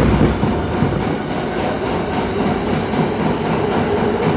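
New York City subway car running through a tunnel, heard from inside the car: a loud, steady rumble of wheels on the rails, with a slightly sharper knock right at the start.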